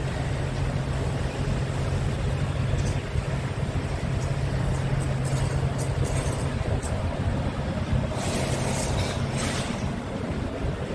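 Scania R 144 G's 14-litre V8 diesel idling steadily, with a short hiss about eight seconds in.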